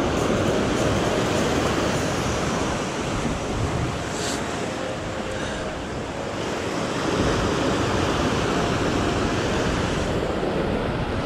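Ocean surf washing and foaming around rocks as a steady rushing wash. It eases about halfway through and swells again about seven seconds in.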